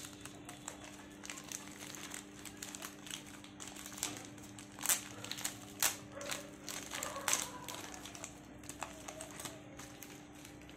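Thin clear plastic bag crinkling as hands work it open and pull out small parts, in irregular crackles, the loudest about five, six and seven and a half seconds in.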